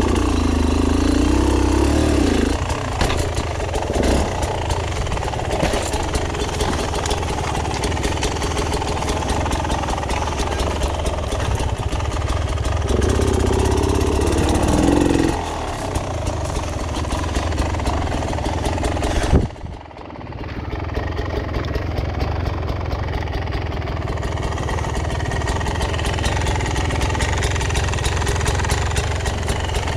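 Off-road motorcycle engine running while riding, with the pitch rising as it revs twice, once at the start and again about halfway through. About two-thirds of the way in, a sharp knock is followed by a brief drop in level before the engine sound returns.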